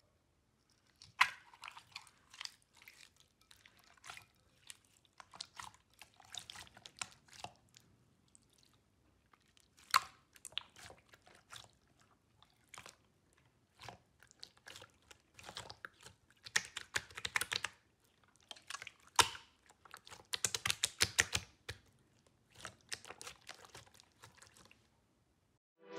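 Clear slime being pressed and squeezed by hand, making irregular wet clicks and pops in clusters with short silences between. The popping is densest a little past the middle.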